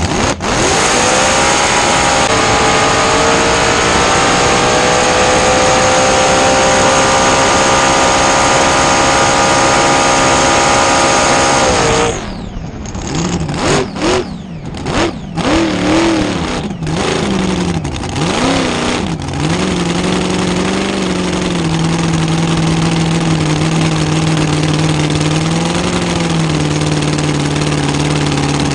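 Supercharged 540 cubic-inch gasoline engine of a blown gas flat-bottom drag boat making a full-throttle pass. The engine note climbs in pitch for a couple of seconds and holds high for about ten seconds, then the throttle is shut suddenly. A few short throttle blips follow, and the engine settles into a steady low running note.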